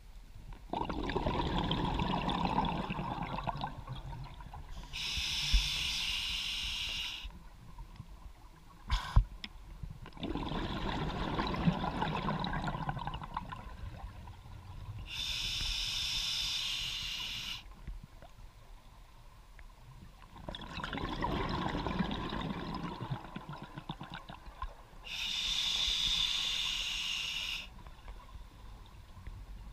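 Scuba diver breathing through a regulator underwater: three slow breaths about ten seconds apart, each a low bubbling rumble followed by a higher hiss. A short sharp knock about nine seconds in.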